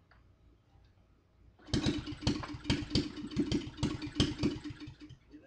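Small go-kart engine pull-started: it catches about one and a half seconds in and runs roughly with loud, uneven firing for about three and a half seconds, then dies near the end.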